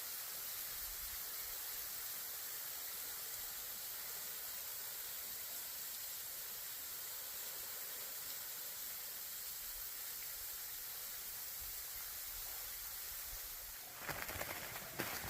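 Steady faint hiss of outdoor background noise, with a short stretch of louder, uneven noise near the end.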